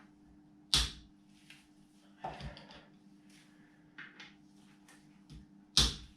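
Two sharp metallic knocks about five seconds apart, with a short clatter and a few light clinks between them, as tools and engine parts are handled during engine teardown.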